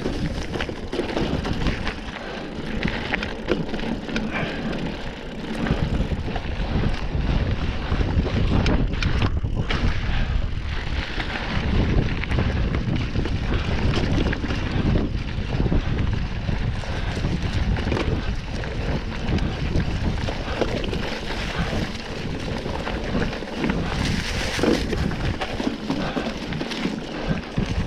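Mountain bike riding a dirt trail: wind rushing over the microphone, with the bike knocking and rattling over bumps.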